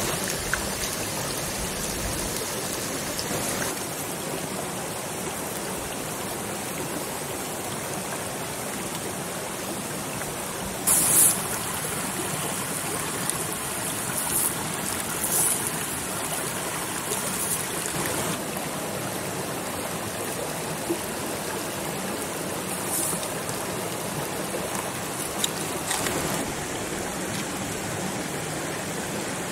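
Steady running water, with a few short, sharp noises over it, the loudest about eleven seconds in.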